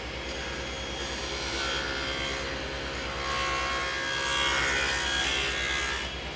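Table saw running with a steady hum while a wooden board is pushed over the blade, cutting a shallow groove with a standard blade rather than a dado stack. The cutting noise swells twice, briefly about one and a half seconds in and then for a longer stretch to near the end.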